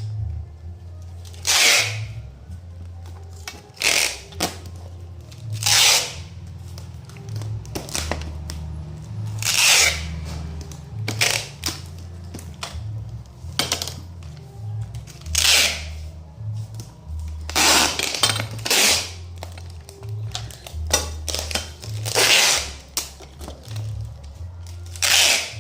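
Packing tape being ripped off the roll again and again in short noisy rasps, one to three seconds apart, over background music with a stepping bass line.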